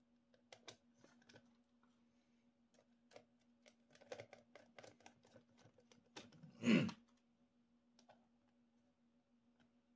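Light clicks and taps of acrylic ant-farm panels and small screws being handled and fitted, with a short louder scrape about seven seconds in. A faint steady hum sits underneath.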